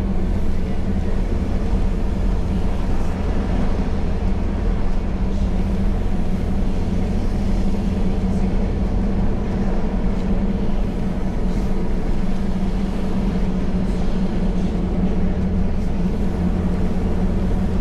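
A Jeep Gladiator driving along beach sand at a steady speed, heard from inside the cab: an even, low drone of engine and tyres.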